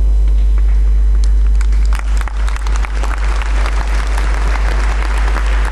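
Congregation applauding, the clapping swelling about two seconds in, over a steady low hum.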